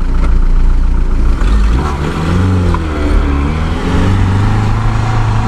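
Lada Niva's newly built 1.9-litre engine (about 100–120 hp) pulling in second low range up a sand hill. Its pitch rises about two seconds in and then wavers up and down as the revs surge under load.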